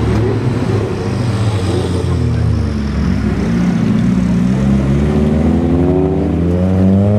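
BMW E36 sedan's engine revving as the car slides in a donut, its pitch climbing steadily over the last four seconds above a steady low drone.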